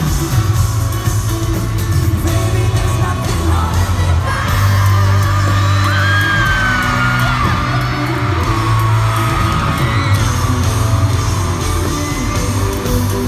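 Live pop music in an arena, recorded from the audience: the band plays loud through the PA with a strong bass line, while fans yell and sing along in high voices.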